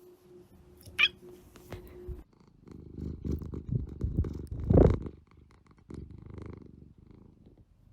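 Domestic cat purring close to the microphone: a low, pulsing rumble from about two and a half seconds in that fades after about three seconds, with a brief sharp sound about a second in.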